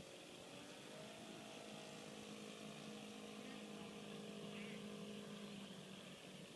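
Distant RC model plane's O.S. 95V engine droning faintly in flight, its pitch shifting up a little about a second in and falling away near the end as the plane moves about the sky.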